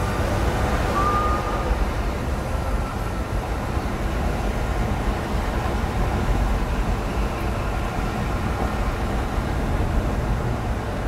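Steady road and tyre noise with engine hum inside a car cabin cruising at highway speed.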